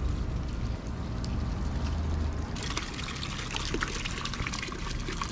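Fountain water splashing and trickling into a stone basin, cutting in abruptly about halfway through as a dense, crackly hiss. A low rumble of wind or handling noise comes before it.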